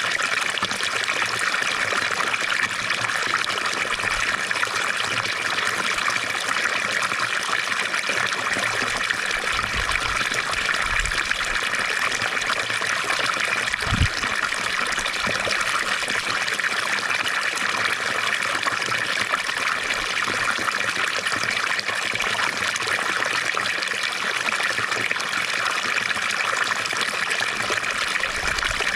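Water from a fountain splashing and trickling in a steady stream. About halfway through there is a single brief low thump.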